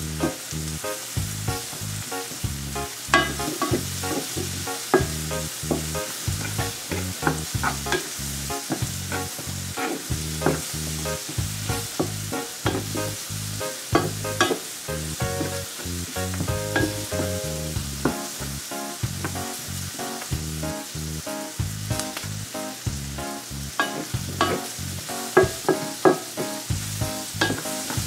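Diced bell peppers and onion sizzling in butter in a nonstick frying pan, stirred with a wooden spatula that clicks and scrapes against the pan as the vegetables are sautéed until slightly wilted. Background music plays underneath.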